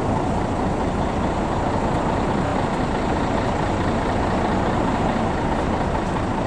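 Steady rumble of motor traffic and engines, an even noise with no distinct events.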